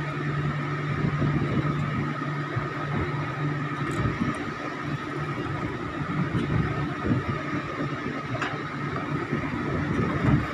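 Steady drone of an engine running on the fishing boat, with a few faint clicks.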